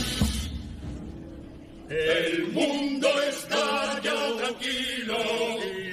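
Chirigota carnival chorus singing a line together in Spanish, starting about two seconds in after a short lull.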